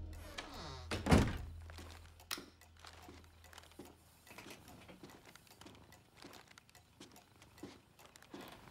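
A single heavy thump about a second in, as a low hum dies away. It is followed by faint, scattered small clicks and taps in a small room.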